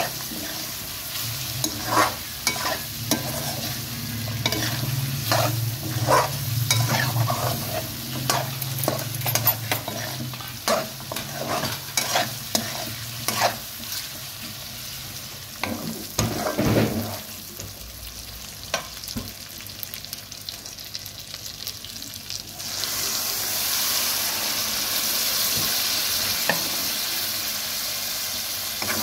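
Metal spoon stirring chicken frying in oil in an aluminium pot, scraping and knocking against the sides over a steady sizzle. The stirring stops, and about three-quarters through a louder hiss starts suddenly as tomato puree goes into the hot oil.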